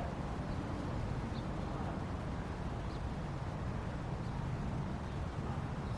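A steady low background rumble, with a few faint, short high chirps from an African grey parrot.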